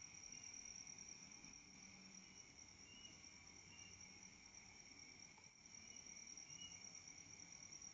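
Faint, steady chorus of night crickets, a continuous high trill with a few short higher chirps over it.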